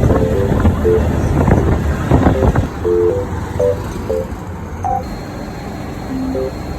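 Light background music of short plucked notes, over a low rumble with a few knocks and movement noises in the first half that fade out after about four seconds.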